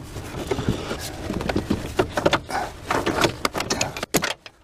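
Irregular metallic clicks, knocks and scrapes of a hand tool working on a vehicle's steering box and shaft linkage, with a sharper knock a little after four seconds.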